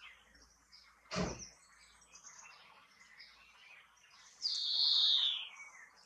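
European greenfinch giving its drawn-out wheeze near the end, a loud call about a second and a half long that slides down in pitch, over faint high twittering. About a second in there is a brief, sharp knock.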